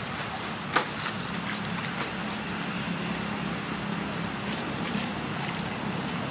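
Steady background noise with a low hum, and one sharp click about a second in.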